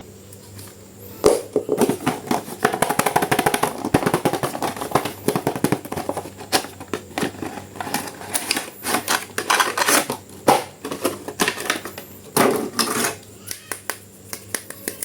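Hard plastic toy packaging and parts being handled and opened: rapid, irregular clicks and crackles that are busiest through the middle and thin out near the end.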